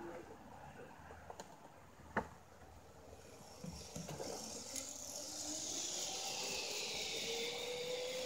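Zip line trolley pulleys running along the steel cable: a whirring whine that grows louder from about halfway, a high tone sliding down in pitch over a lower one slowly rising. A single sharp click comes about two seconds in.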